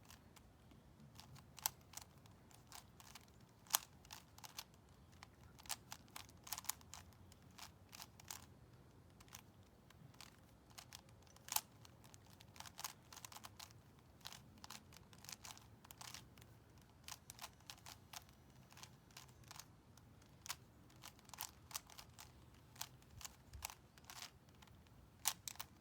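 Fisher cube, a plastic twisty puzzle, being turned by hand: faint, irregular clicks and clacks of its layers snapping round, several a second with short pauses between bursts of turns.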